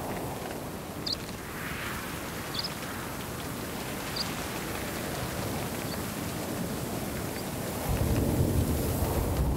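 A steady outdoor hiss of weather, with short high chirps about every second or so. About eight seconds in, a deep rumble swells up and holds.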